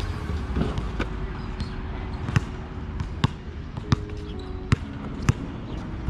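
A basketball bouncing on an outdoor hard court as the player dribbles: a row of sharp thuds, roughly one every second or less, starting about a second in, over a steady low rumble.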